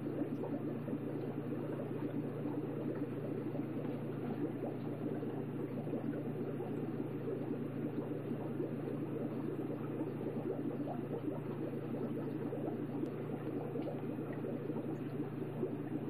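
Steady bubbling of aquarium water over a low, even hum.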